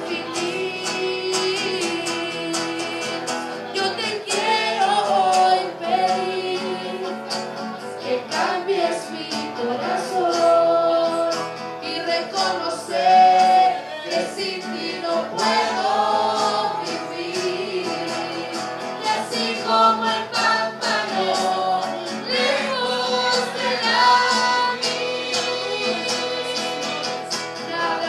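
Christian worship song: voices singing together over instrumental accompaniment.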